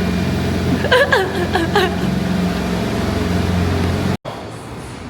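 A car engine idling with a steady low hum, and a few brief voice sounds about a second in. The sound cuts off abruptly about four seconds in, giving way to a quieter background.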